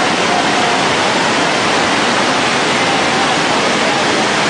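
Floodwater of a river in spate, a loud, steady rush of torrential water.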